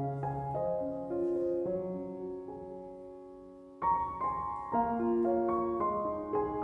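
Background piano music: soft chords struck and left to ring and fade, with a new phrase entering about four seconds in.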